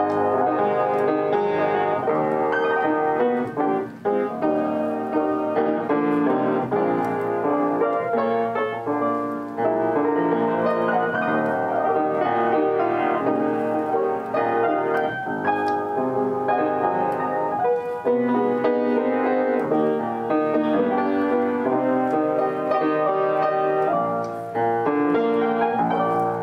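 An upright piano played steadily, a song in full chords with several notes sounding at once throughout.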